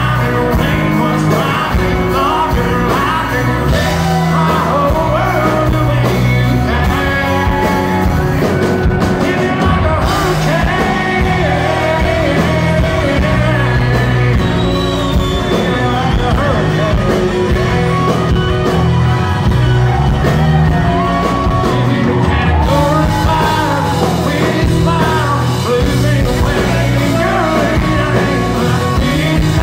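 Live country band playing: a male lead singer sings over acoustic guitar, drums and bass with a steady beat.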